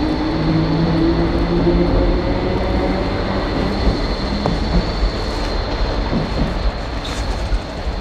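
KCR electric commuter train pulling out along the station platform: a steady rumble with a thin high whine, easing off slightly toward the end.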